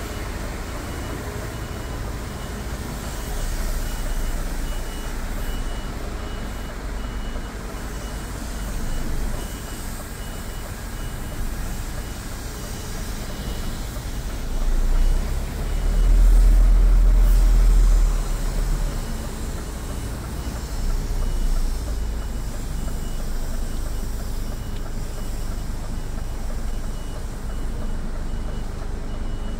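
A truck's reversing alarm beeping at a steady even pace over the low running of a Scania R450's diesel engine, heard from inside the cab as the rig backs up. The engine rumble swells loudly for a couple of seconds around the middle.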